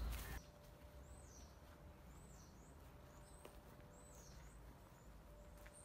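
Faint, high-pitched bird calls: a short note that swoops down and back up, repeated about once a second. A brief rustling noise cuts off just after the start.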